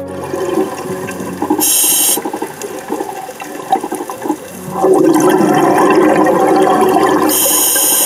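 Underwater bubbling and gurgling, loudest for about two and a half seconds past the middle, broken twice by a short sharp hiss. This fits a scuba diver's regulator: the hiss of an in-breath and the bubbles of the out-breath.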